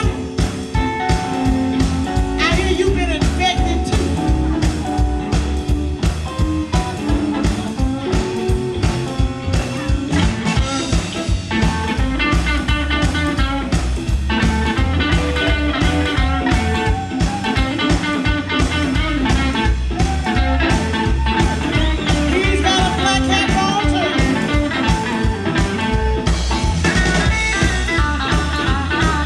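Live blues band playing with a steady drum beat and bass; from about ten seconds in an electric guitar takes a lead solo with bent notes.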